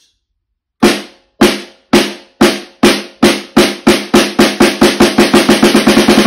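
Snare drum played with wooden sticks in the double-stroke rudiment: it starts about a second in at roughly two strokes a second and speeds up steadily until the strokes blur into a continuous double-stroke roll near the end.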